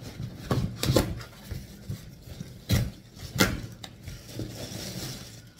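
Large cardboard box being pulled open and handled, with four sharp knocks and scrapes of cardboard.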